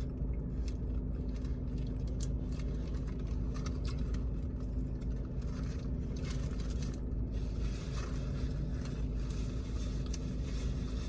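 Chewing and eating noises, with scattered small clicks and crackles, over a steady low hum.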